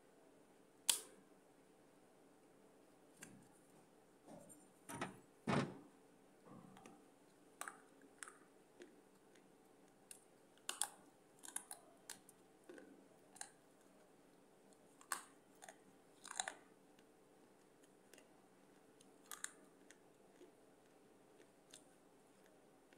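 Baked clay being bitten off and crunched between the teeth: sharp, irregular cracks and crunches. The loudest bites come about a second in and twice around five seconds in, followed by smaller scattered crunches.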